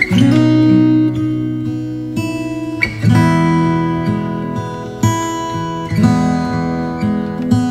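Background music: acoustic guitar playing chords, with a new chord struck every second or two.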